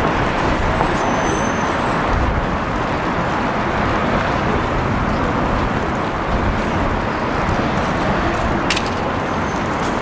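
Steady murmur and general din of a racecourse crowd outdoors, with no single sound standing out.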